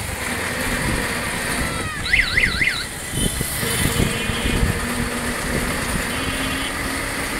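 City street traffic heard from a moving vehicle: engines running with a steady rumble. About two seconds in, a warbling tone rises and falls three times, and short high tones sound a few times later.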